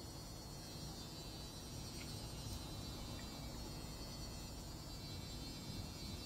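Faint steady electrical hum and room hiss, with a couple of faint clicks about two seconds in.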